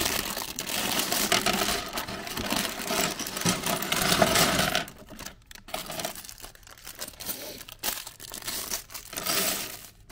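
Clear plastic bag of LEGO pieces crinkling as it is handled and emptied, with the small plastic bricks clattering out onto the table. After about five seconds it turns to sparser crinkles and clicks as a smaller bag is handled.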